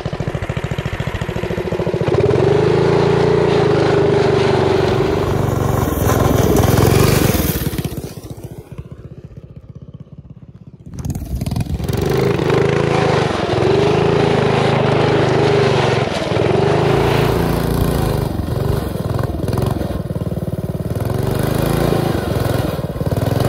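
Mini bike's Briggs & Stratton 11 hp big-block single-cylinder engine revving hard under load on a sandy hill climb, its pitch rising and falling with the throttle. It eases off for about three seconds some eight seconds in, then pulls hard again.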